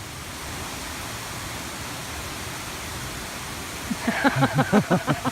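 Steady rush of a waterfall. Near the end a person's voice cuts in with a quick run of short bursts.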